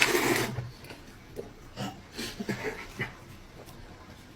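A person eating: a loud slurp or breathy burst at the start, then chewing with small clicks and soft smacks.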